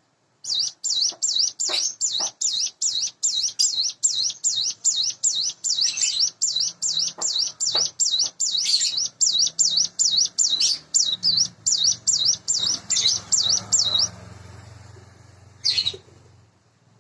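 Ciblek gunung, a prinia, singing a fast, even run of sharp high repeated notes, about three a second, for some thirteen seconds. The run stops abruptly, and one more note follows about two seconds later.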